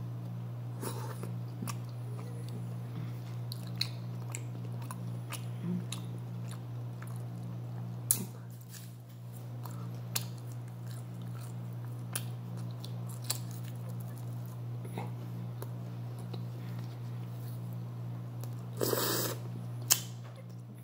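A person chewing and biting food eaten by hand (grilled pork, corn and noodles), with scattered small wet clicks and smacks of the mouth and fingers. Near the end comes one louder noisy burst, about a second long, then a sharp click.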